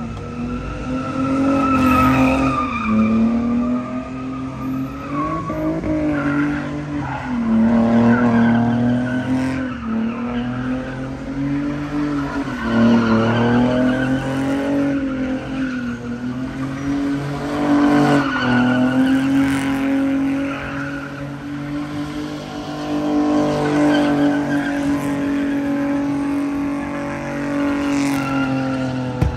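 A car spinning its tyres in a sustained burnout: the engine is held at high revs, its pitch dipping and climbing again every few seconds, with the tyres screeching.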